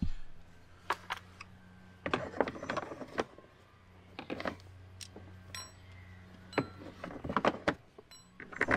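A plastic mudguard being pressed into place against the wheel arch while screws and a screwdriver are handled, giving scattered small clicks and knocks. A steady low hum runs underneath and stops about two-thirds of the way through.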